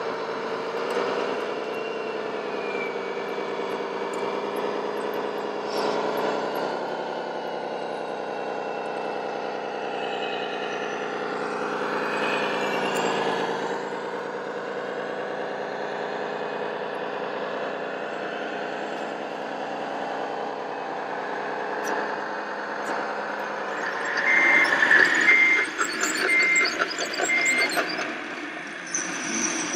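Radio-controlled scale truck's sound module playing a diesel engine running, its pitch rising and falling slightly with the throttle. Near the end a reversing alarm beeps four times, about once a second.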